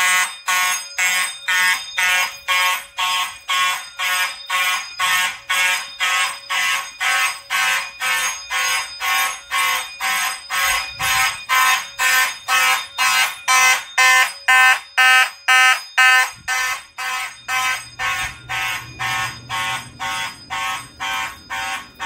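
Fire alarm horns, Simplex horn-strobes among them, sounding together in march-time code: rapid, evenly spaced buzzing blasts, about two a second.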